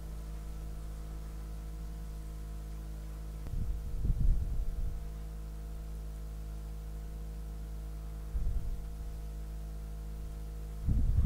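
A steady electrical-sounding hum made of several even low tones, broken twice by brief low rumbles, about three and a half seconds in and again at about eight and a half seconds.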